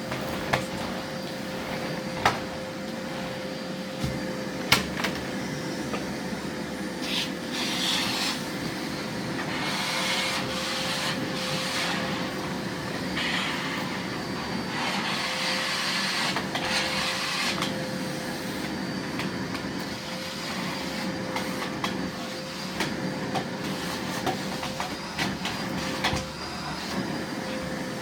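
Miele Blizzard CX1 bagless cylinder vacuum cleaner running steadily with a constant whine. It gives a few sharp clicks in the first five seconds, and the hiss swells in patches as the nozzle works the floor.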